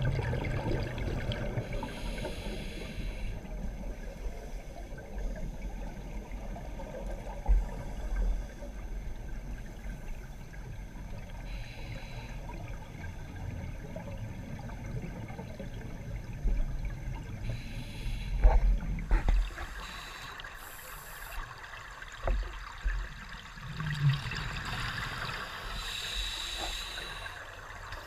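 Underwater scuba breathing: the divers' regulators release bursts of exhaled bubbles every several seconds, over a steady low rumble of water, with a few dull knocks.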